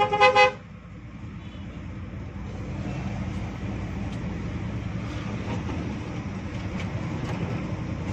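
A short two-tone horn blast right at the start, then the Hino RG1J bus running steadily on the road, its engine and road noise heard from inside the cab.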